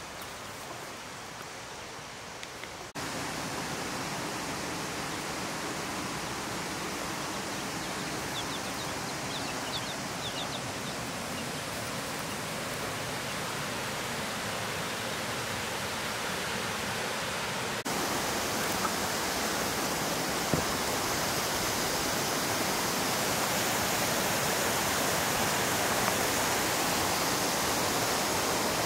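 Steady rushing of flowing water, an even hiss that jumps louder about three seconds in and again a little past halfway.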